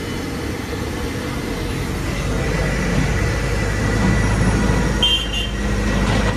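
Steady low rumble of street traffic with a vehicle engine running close by, growing louder after about two seconds. A brief high squeak comes about five seconds in.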